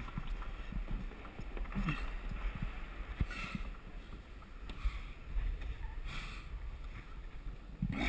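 Steady low rumble on a body-worn action camera's microphone, with a climber's short, hard breaths about every one and a half seconds while straining on the wall.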